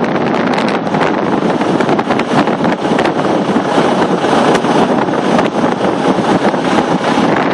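Strong gusty wind buffeting the microphone: a loud, steady rush broken by many short crackling pops.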